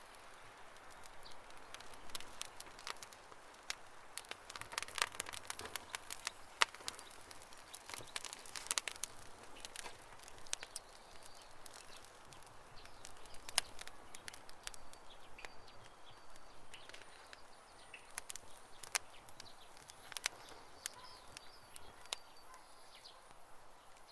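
Wood campfire crackling: irregular sharp pops and snaps over a soft hiss, busiest in the first half and thinning out later.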